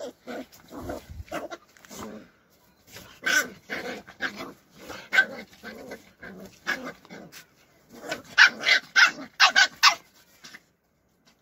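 Puppies play-fighting, growling and barking in short, rapid bursts, with a run of loud, sharp barks near the end before they fall quiet.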